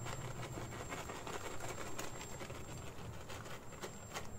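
Shredded cheese being shaken out of a plastic bag: faint, irregular crinkling and rustling of the bag, over a low steady hum.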